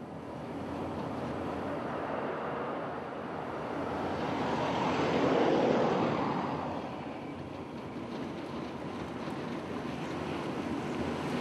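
A car drives past on an asphalt road: engine and tyre noise swells to a peak about five to six seconds in, then fades away into a steady lower drone.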